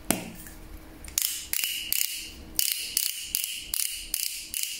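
Click-pen concealer being clicked repeatedly to push product up into its sponge tip: a run of sharp clicks, about three a second, starting about a second in.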